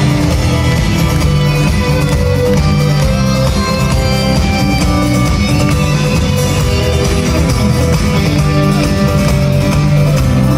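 Instrumental band music without singing: held melody notes over a steady, full bass.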